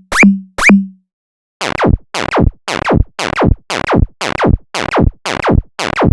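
Synthesized electronic sound effects: two short rising chirps with a low thump, then after a brief gap a fast run of falling pitch sweeps, about three a second, that stops suddenly.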